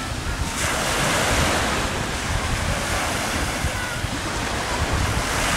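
Small waves breaking and washing up a sandy beach, a steady surf hiss that swells about half a second in, with wind buffeting the microphone as a low rumble.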